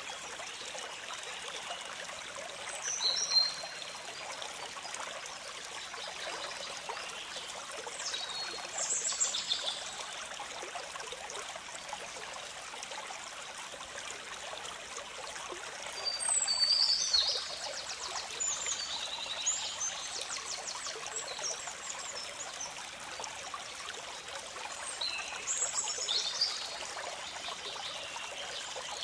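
Steady rush of a stream flowing over stones, with several short spells of high chirping and trills over it, the longest a few seconds past the middle.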